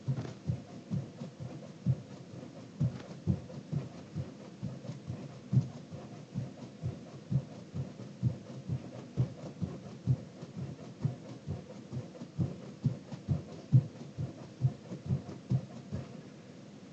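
Feet thumping on the floor, landing from jumping jacks in a steady rhythm of about two thumps a second.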